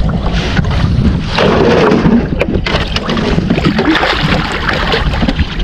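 Wind buffeting the microphone over river water slapping against an aluminium boat hull, while a large catfish is hauled to the side by hand and splashes at the surface.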